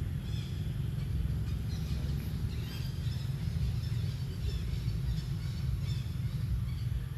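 Outdoor ambience: a steady low rumble with faint, scattered bird chirps above it.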